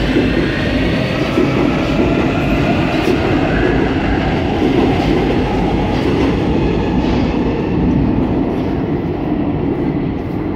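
Warsaw Metro train pulling out of an underground station: a loud, steady rumble of wheels and running gear that carries on after the cars have gone into the tunnel, easing slightly near the end.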